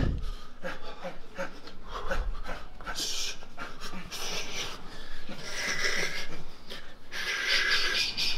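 Hard breathing of men shadow boxing, throwing uppercuts: a string of hissing breaths, the longest near the end.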